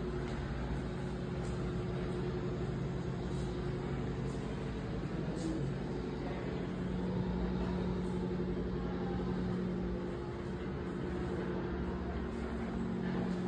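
A steady, low mechanical hum, like a running motor, with a couple of held tones over a noisy background.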